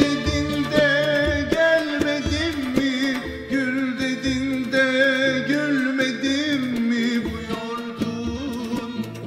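Turkish art music song in makam Muhayyerkürdî and düyek rhythm: a wavering, ornamented melody over a steady low beat.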